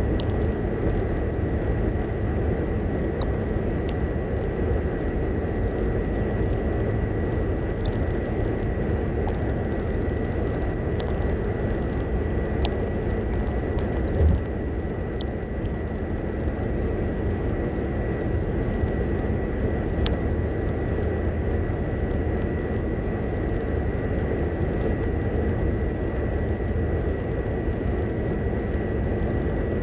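Steady road and engine noise heard inside a car cruising at highway speed, with one short low thump about halfway through.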